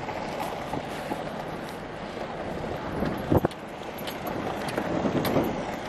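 Steady wind noise on the microphone, with one short sharp knock about three and a half seconds in.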